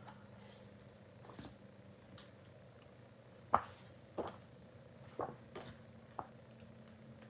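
Sheets of patterned designer paper being handled and shuffled by hand: about five short papery flicks and taps from about halfway through, over a faint steady hum.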